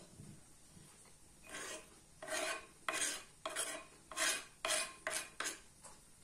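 Knife blade scraping chopped cooked ham off a wooden cutting board into a glass bowl: a run of short rasping scrapes, about two a second, starting about a second and a half in.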